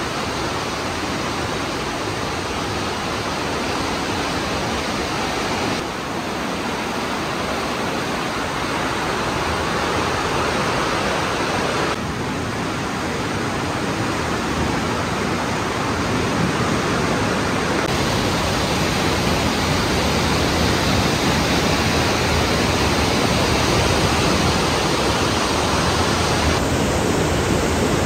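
The Aare river rushing through a narrow rock gorge: a steady, even noise of fast-flowing white water that changes slightly in level several times, with a waterfall in the last couple of seconds.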